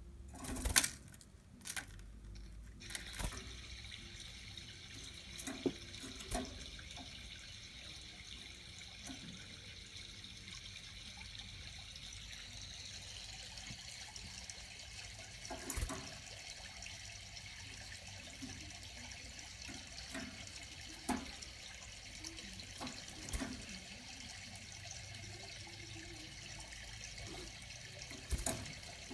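Steady hiss of running water, starting about three seconds in, with scattered light clicks and taps.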